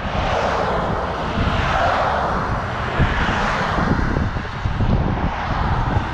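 Road traffic noise with a vehicle passing close by near the start, over a low, uneven rumble of wind on the microphone as the bike rides along.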